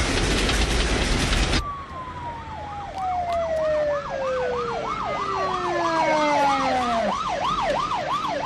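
Locomotive's steel wheels running fast on the rails, a loud rushing clatter that cuts off abruptly about one and a half seconds in. Then emergency-vehicle sirens: one siren winds down in a long, steadily falling tone, while a fast electronic yelp swoops up and down about two and a half times a second.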